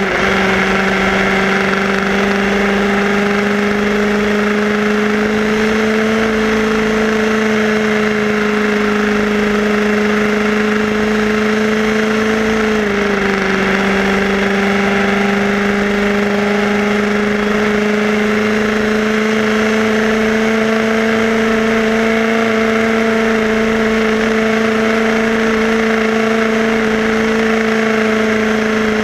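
Radio-controlled Tamiya car's motor and gears whining steadily at cruising speed over a hiss of road noise. The pitch dips briefly partway through, then holds steady again.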